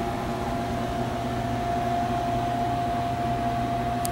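Steady machine hum with a constant high whine and a low drone, unchanging throughout.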